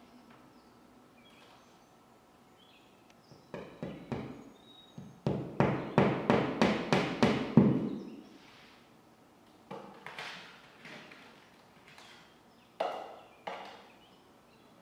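Claw hammer driving a fine finishing nail through a carpet tile into a wall: a few light taps, then a quick run of about ten sharper strikes, about four a second. Two more knocks come near the end.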